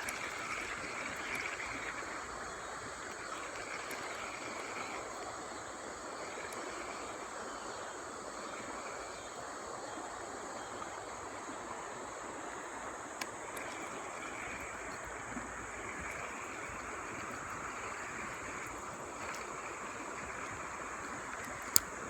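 River water flowing steadily, with one sharp click near the end.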